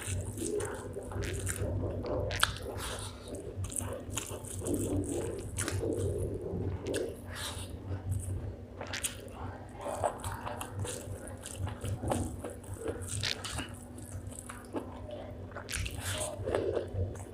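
Close-up chewing and biting of spicy chicken gizzard with rice: wet, squishy mouth sounds with irregular crunches and clicks.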